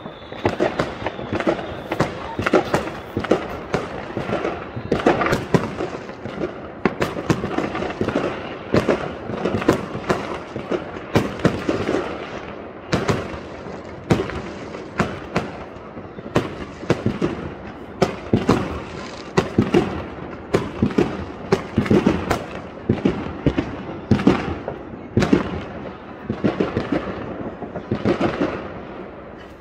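Many fireworks going off in quick succession: a dense, irregular barrage of sharp bangs and crackles, several a second, that goes on without a break.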